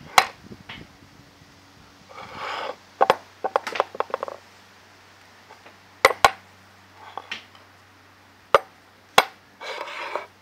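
Steel machine vise worked by hand: the movable jaw scrapes briefly as it slides along the ways, with sharp metal clacks as it knocks home, several separate times.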